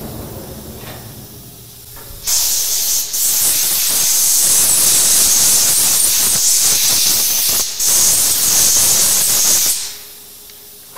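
Compressed-air blow gun blasting into a CNC milling machine's work area: a loud, steady hiss for about seven seconds, broken by two short pauses, after a low rumble from the machine door sliding open.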